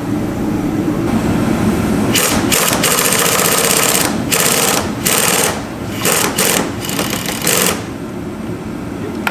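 A power tool driving the bolts of a car's front coilover strut, a rapid mechanical buzz in several bursts that stops a little before the end.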